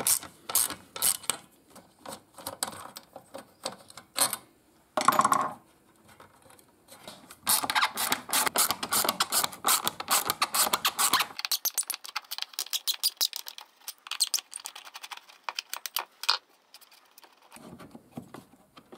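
Hand ratchet wrench clicking as screws are undone, in a long run of fast clicks through the middle, between scattered clinks and knocks of metal tools and parts being handled.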